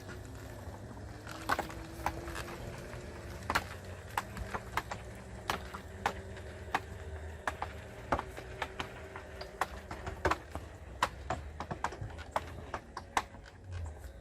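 A remote-controlled DIY lawnmower running: a steady low hum and a faint whine that stops about ten seconds in, with irregular sharp clicks and ticks several times a second.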